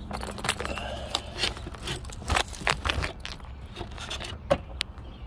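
Irregular metallic scraping, rubbing and clicking as a Honda Accord alternator is worked loose and pulled out of the engine bay by hand, with one sharp click about four and a half seconds in.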